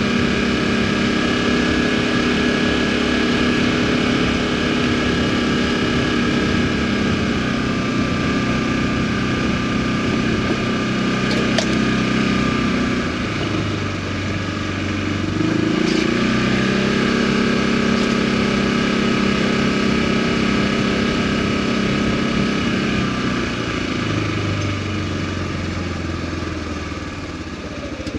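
Polaris Ranger utility vehicle's engine running as it drives a short way, its pitch dropping and rising a few times as the throttle changes.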